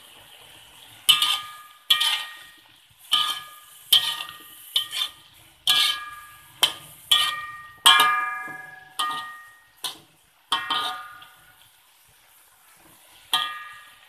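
Metal spatula scraping and knocking against a wok during stir-frying, about fourteen ringing clangs at an uneven pace, with a pause of about two seconds near the end.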